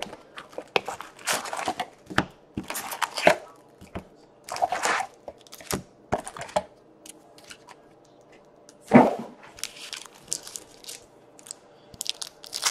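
Hockey card pack wrappers being torn open and cards handled: irregular rustling and crinkling bursts, with one louder burst about nine seconds in.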